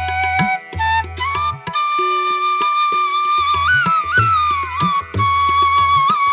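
Background music: a flute melody with sliding, bending notes over hand-drum percussion and a pulsing bass.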